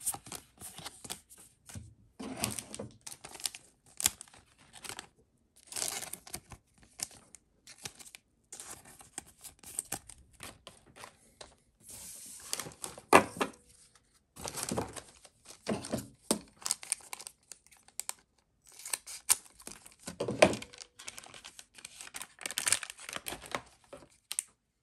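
Trading card booster pack wrappers being torn open and crinkled, in irregular bursts of ripping and rustling.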